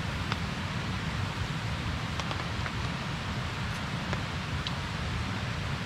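Steady rain falling, with a handful of sharp drop ticks now and then.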